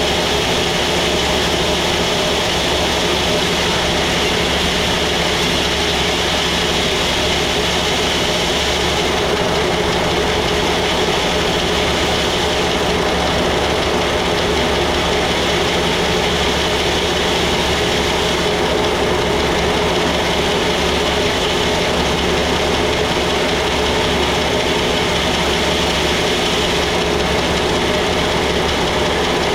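Sawmill machinery running steadily with a constant mechanical hum and whine.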